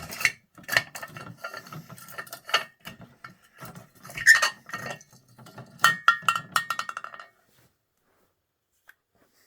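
Aluminium camping canteen and its chained cap being handled: a run of sharp metallic clinks and rattles with a brief ring, ending about seven seconds in.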